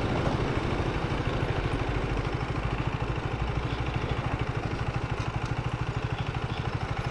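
KTM 250 Duke's single-cylinder engine idling with a rapid, even pulse, settling into the steady beat about a second in.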